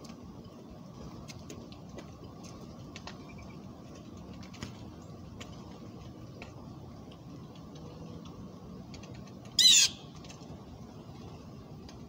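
Blue jay giving one loud call, about half a second long, near the end, over a steady low outdoor background with a few faint clicks.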